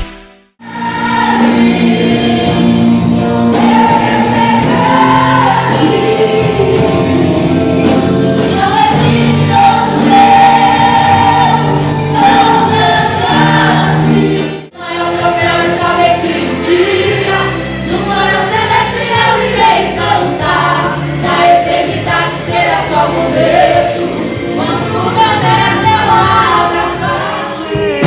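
Gospel choir singing with instrumental backing, breaking off briefly about halfway through and then going on.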